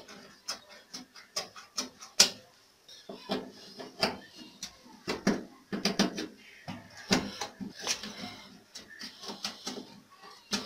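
Irregular clicks, taps and scrapes of a washing machine's door interlock being worked loose and pulled out of the door frame.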